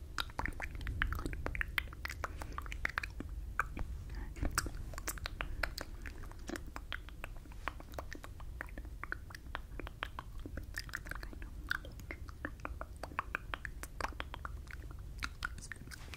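Close, wet mouth sounds from inaudible whispering: lip smacks, tongue clicks and breathy mouthing of words without voice, right up against the microphone. A steady stream of small clicks over a low rumble.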